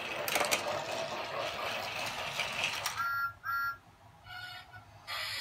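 Battery-powered toy train engine running on plastic track, its small motor and gears whirring steadily, with a click about half a second in. The whirr cuts off about three seconds in, followed by two short high chirps.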